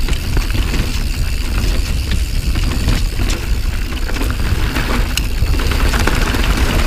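Santa Cruz Nomad mountain bike riding fast down a dirt singletrack. Tyre noise and wind on the camera's microphone make a steady low rumble, with scattered sharp clicks and rattles as the bike goes over roots and rocks.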